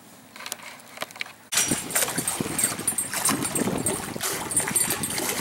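Water splashing at the shore with wind on the microphone: a loud, rough, crackling rush that comes in suddenly about a second and a half in, after a quiet stretch with a few faint clicks.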